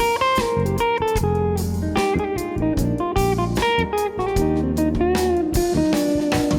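Background music led by guitar, with plucked and strummed notes over a steady beat.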